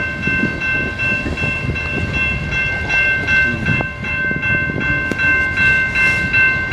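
An empty coal train's cars rolling past, a continuous rumble and clatter of wheels on rail. Over it, a grade-crossing warning bell rings steadily.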